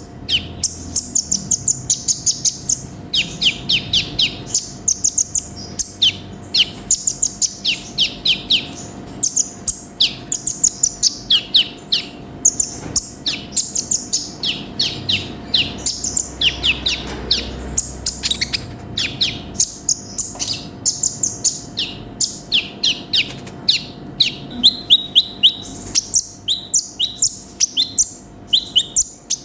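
A sunbird (konin) singing in quick bursts of high, thin chirps, each note sweeping downward, repeated with short gaps between phrases.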